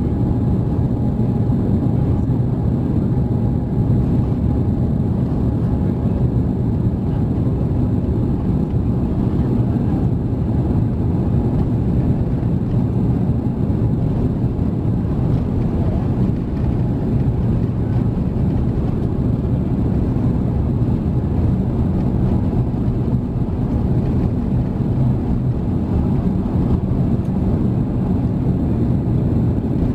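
Steady low rumble of an Airbus A350-900 taxiing at low power, heard inside the cabin: its Rolls-Royce Trent XWB engines and the wheels rolling over the taxiway.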